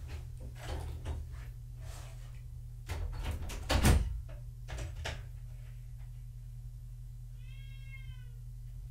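A few scattered knocks and a louder thump about four seconds in, then a single meow from a cat near the end, its pitch rising slightly and falling. A steady low hum runs underneath.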